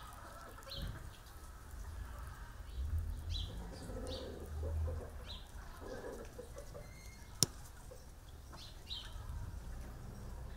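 Birds chirping in the background, several short high calls spread through, over a low steady rumble, with one sharp click about seven seconds in.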